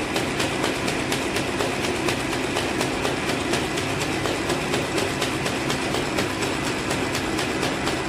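Gold leaf booklet-making machine running, with a rapid, even clicking over a steady mechanical hum.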